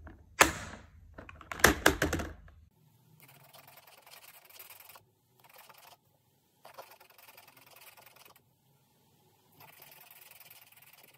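Plastic markers clattering and clicking against each other in a plastic storage case as a hand rummages through them. Then a marker tip rubs across paper in strokes a second or two long, with short pauses between them.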